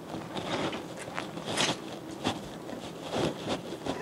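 Gloved hands rubbing lime, salt and vinegar over whole raw fish in a glass baking dish: irregular wet scraping and rustling strokes, a few louder than the rest.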